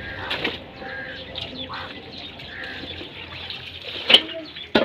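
Hand-washing laundry: a hose runs water into a basin while a wet garment is lifted, dipped and sloshed in it, with two sharp splashes near the end.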